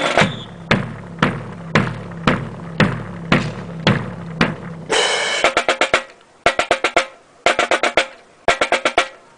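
Marching drum cadence: steady drum beats about two a second, then from about halfway short quick snare rolls about once a second.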